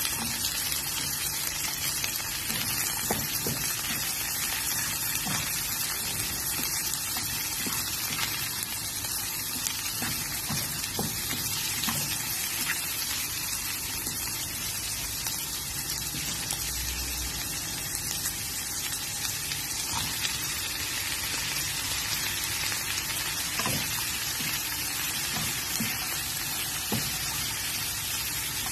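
Bell peppers and onion sizzling steadily in a hot non-stick frying pan as they are stir-fried, with scattered light knocks of a wooden spatula against the pan.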